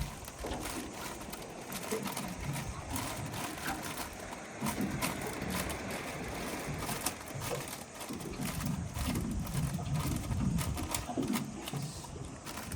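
Kingfish fillets sizzling in a hot frying pan, with a dense, irregular crackle over a steady hiss and a low, uneven rumble underneath.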